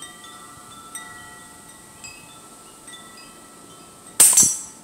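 Wind chimes ringing several notes, struck about once a second. About four seconds in, a single sharp shot from a Hatsan Jet 2 pre-charged air rifle fitted with a moderator.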